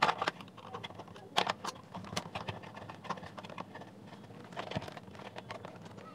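Irregular light clicks and taps of a screwdriver and the plastic speaker housing being handled while screws are taken out of a small display circuit board.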